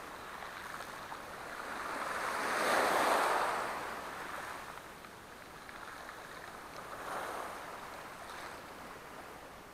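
Small sea waves washing against the shore, swelling about three seconds in and again about seven seconds in, with a steady hiss of water between.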